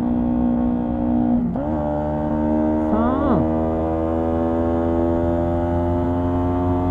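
Honda CB125T's 125 cc parallel-twin engine running under load on a climb, with its air filter and silencer removed. About one and a half seconds in, the engine note drops and rises again as a gear changes, and about three seconds in a brief rev rises and falls over the steady note.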